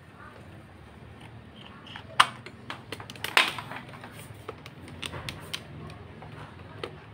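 Plastic clicks and knocks as an electric fan's plug is worked into a power socket and the fan is handled. The loudest click comes about two seconds in, a second burst about a second later, then scattered lighter clicks, over a faint low steady hum.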